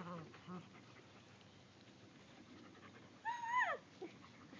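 Shiloh Shepherd puppies at play, giving brief soft whines at the start, then a loud high-pitched yelp about three seconds in that holds and then drops sharply in pitch, followed at once by a short lower yelp.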